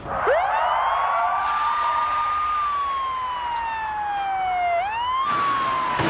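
Korean police patrol car's siren switching on. It sweeps up quickly to a high pitch and holds, then slowly falls in a long wail. Near the end it sweeps up again and starts to fall once more.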